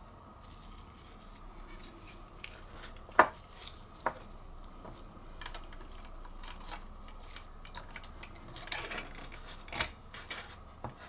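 Handling noise from a removed CPU heatsink: scattered sharp clicks and light metallic taps, one louder click about three seconds in, then a short spell of rubbing and clicking near the end.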